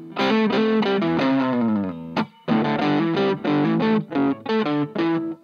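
Electric guitar played through a 2-watt Little Rebel amp kit into a Jensen CR8 speaker, with overdrive from the amp's two-LED clipping circuit. It plays a riff of short picked chords; one chord held about a second in sinks in pitch, there is a brief break a little past halfway, then more chords.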